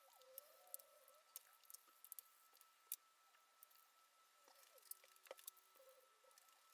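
Near silence with faint scattered clicks and ticks.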